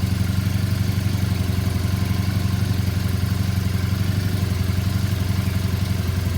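2007 Triumph Bonneville T100's parallel-twin engine idling steadily on choke, just after a cold start on a newly fitted battery.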